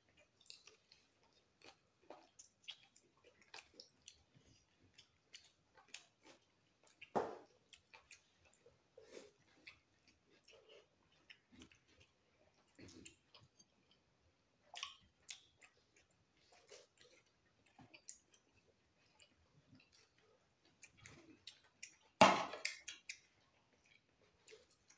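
Close-miked eating sounds: chewing and wet mouth clicks and smacks as chicken and rice are eaten by hand, in short scattered bursts. There is a louder smack about 7 seconds in and a louder burst near the end.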